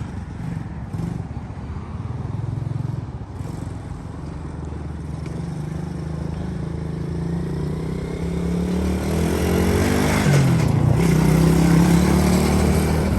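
125cc Coolster ATV's small single-cylinder engine running as the quad is ridden. The engine note rises and falls with the throttle and gets louder, revving higher, from about eight seconds in.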